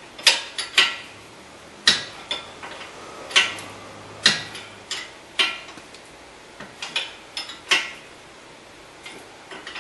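7/8-inch open-end wrench clinking on the new ball joint nut as it is tightened in short strokes: a string of irregular sharp metallic clicks, about one or two a second.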